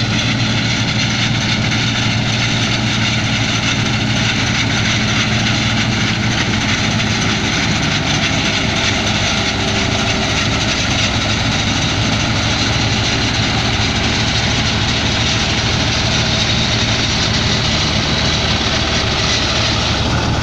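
New Holland Clayson M89 combine harvester running steadily while cutting a crop. Its engine hum mixes with the noise of the header and threshing machinery under load.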